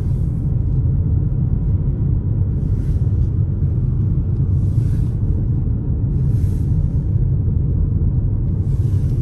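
Steady low road and engine rumble inside a moving car's cabin, with a faint hiss that swells and fades every couple of seconds.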